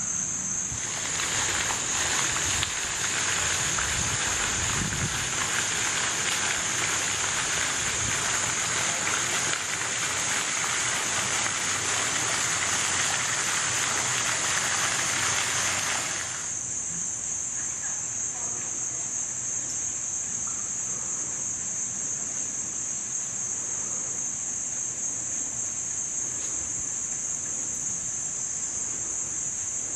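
Steady, high-pitched chorus of insects. From about a second in until about halfway, a broad rushing hiss lies over it, then cuts off suddenly.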